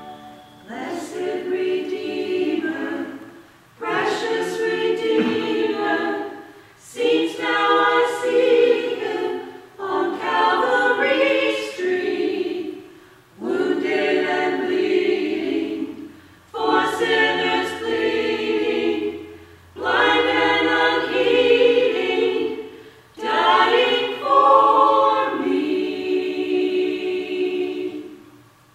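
Small church choir singing in phrases of a few seconds each, with brief pauses between them, ending just before the close.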